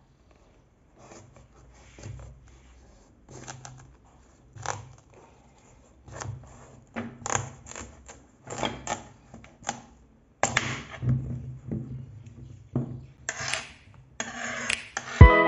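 Irregular clicks, knocks and scrapes, like small objects being handled, becoming louder and more frequent; music starts near the end.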